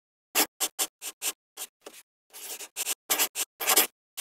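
Scratchy writing strokes on paper, about a dozen quick strokes of varying length, the later ones longer and louder, drawing out a handwritten title.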